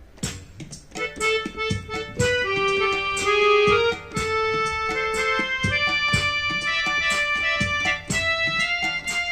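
Yamaha PSR-I400 portable keyboard playing music: held pitched notes over a regular drum-like beat. It comes in suddenly just after a quiet moment.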